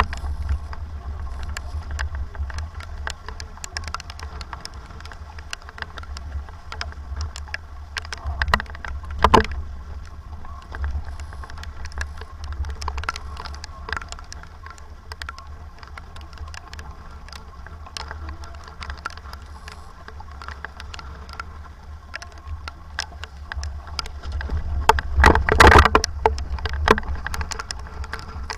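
Sailboat under way in a strong 25-knot wind: a steady low wind rumble on the microphone over rushing water, with scattered sharp knocks and a louder noisy burst near the end.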